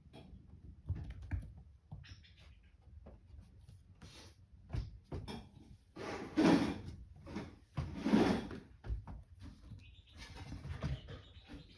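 A mother cat and kittens moving about, making scattered soft knocks and bumps, with two louder short sounds past the middle.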